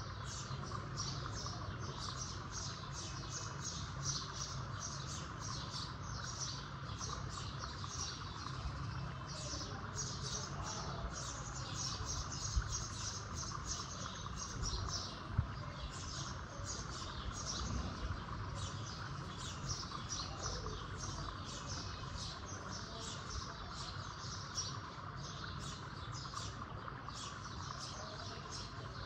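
Birds chirping steadily in the background, many short high chirps a second, over a low steady rumble. Two brief knocks fall near the middle.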